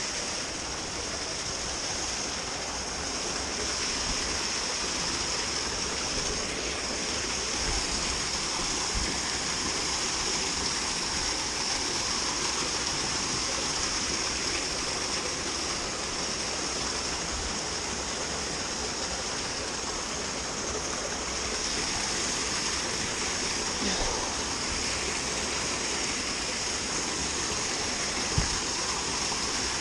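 Steady rush of water pouring at a canal lock, unbroken throughout, with two brief knocks near the end.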